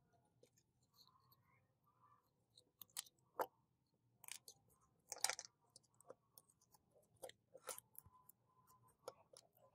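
Faint clicks, taps and crunchy scrapes of rusty metal model-car parts being handled and pried apart by hand, with the loudest scrape about five seconds in.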